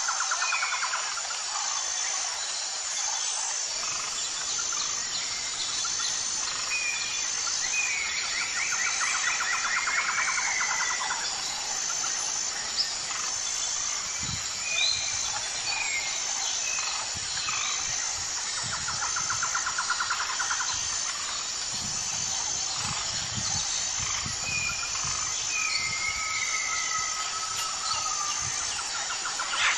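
Bird chorus of assorted songbirds: short chirps, buzzy trills and whistled glides repeating on and off, over a steady hiss and a high, evenly pulsing tone. A few soft low thumps come in the second half.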